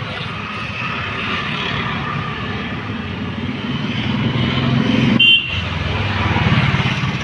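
Motor vehicle engines running amid road traffic noise, with a brief horn toot about five seconds in.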